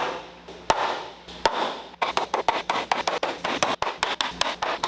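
Sharp knocks from framing a wall in lumber: two single strikes that ring out, then from about two seconds in a quick run of taps and knocks, several a second.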